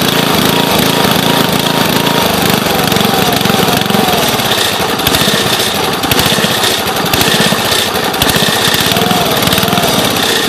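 Small gasoline engine of a towable log splitter running steadily at a constant speed.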